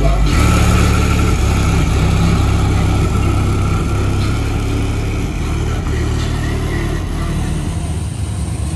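G-body car's engine and exhaust rumbling steadily at low speed as the car rolls slowly off, the sound easing a little as it pulls away.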